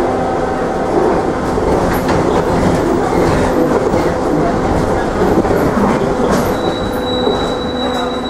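Cabin noise of a Škoda 14Tr trolleybus under way: rattling body and fittings over road rumble, with steady whining tones. A higher whine joins about seven seconds in.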